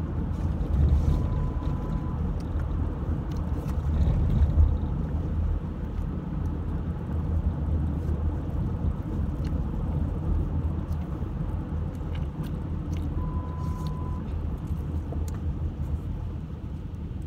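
Steady low rumble of a car's engine and road noise heard inside the cabin, with two short faint beeps, one about a second in and one near the end.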